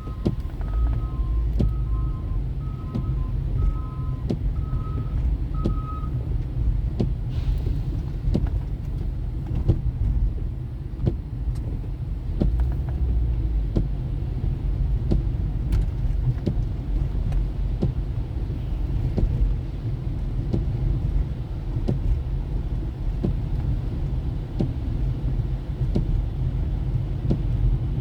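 Car driving on city streets: a steady low rumble of engine and road noise with scattered light ticks. For the first six seconds an electronic beep alternates between two pitches, about one beep a second, then stops.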